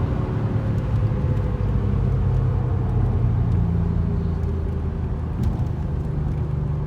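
Audi RS4's turbocharged engine running at fairly steady revs under way, heard from inside the cabin; the engine note changes slightly about four seconds in.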